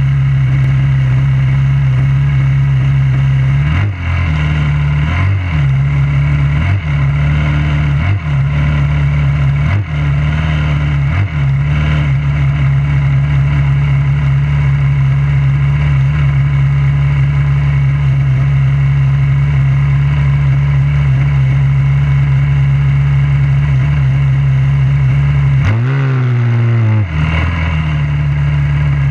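A junior dragster's single-cylinder engine idling steadily, heard from on board. Its pitch briefly dips a few times in the first dozen seconds, and about 26 seconds in it sags lower and then picks back up to idle.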